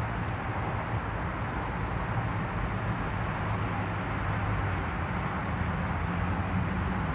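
Steady low hum with an even hiss over it, heard inside a car.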